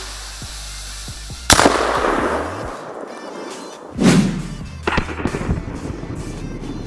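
Two firework-type explosive bangs about two and a half seconds apart, each followed by a fading rush; the second has a heavier low rumble and is followed by a few sharp cracks. Background music plays under them.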